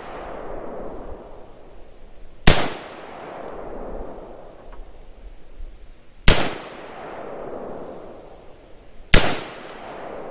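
Three single shots from a 5.56 AR-15 rifle (Palmetto State Armory PTAC kit), a few seconds apart, each followed by a long fading echo.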